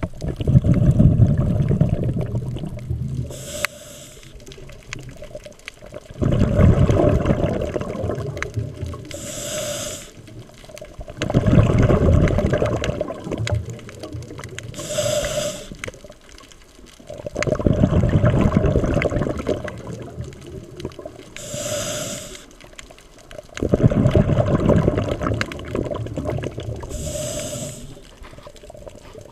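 A scuba diver breathing through a regulator, heard underwater. About every six seconds a short hiss of inhaling is followed by a long, loud rush of exhaled bubbles, five breaths in all.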